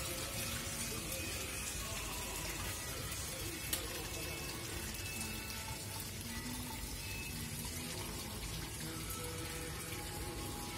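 Small fountain spout splashing steadily into a shallow pool of water, with music playing in the background.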